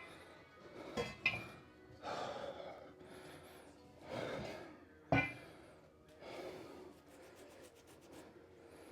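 A man breathing hard and gasping between sets, out of breath after a set of triceps exercise. Sharp clinks or knocks come about a second in, again a moment later, and once past the five-second mark.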